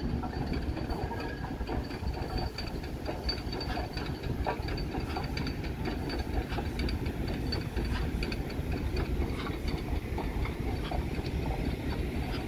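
A steam locomotive and its coaches roll slowly past with a steady rumble, wheels clicking over the rail joints. A faint, thin high squeal runs through most of it.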